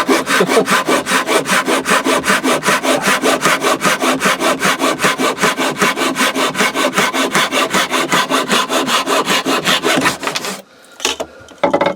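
Japanese pull saw cutting through a thick wooden stool leg in quick, even strokes, about five a second. The sawing stops near the end as the cut goes through, followed by a few light knocks.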